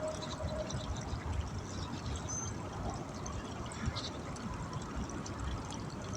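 Steady rushing of flowing water, with uneven low rumble from wind on the microphone.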